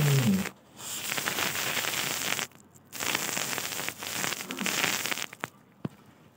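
Rottweiler chewing a fibrous husk chew, its teeth crunching and tearing the fibres: dense crackling in two stretches of about two seconds each, with a short break between. A pitched cry trails off in the first half second.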